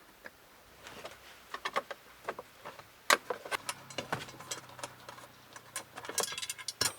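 Irregular metal clicks and ticks of a 10 mm wrench working the bolts that hold the cover plate in front of the cabin air filter, with a quick run of rapid clicks about six seconds in.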